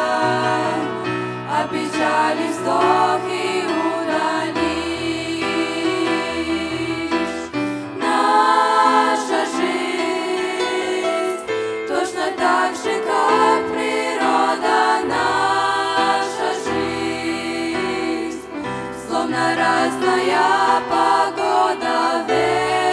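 A group of six teenage girls singing a Christian worship song together into microphones, voices in harmony over sustained low backing notes that change every second or two.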